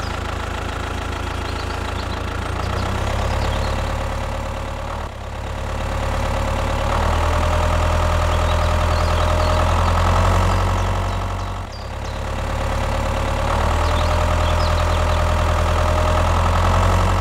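Tractor engine running steadily with an even low chug. It dips briefly about five seconds in and again near twelve seconds, then swells back up.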